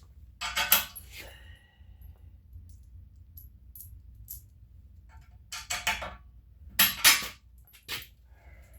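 Loose steel nuts, bolts and washers clinking and rattling as they are handled, in four short bursts of clinks with a brief metallic ring after the first.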